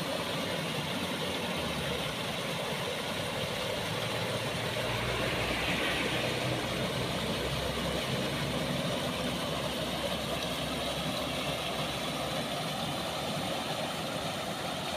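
Steady rush of water spilling over a small concrete weir, with a low engine rumble that swells and fades in the middle.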